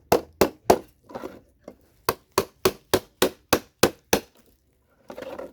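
Steady hammer blows, about three a second: three near the start, then after a short pause a run of about eight more. A hammer is knocking CPU sockets off computer motherboards to recover their gold-plated pins.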